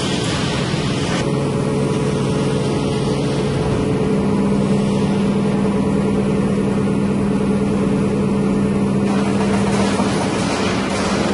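Steady machine hum from a hydraulic press brake over constant industrial noise, with a low drone that firms up partway through.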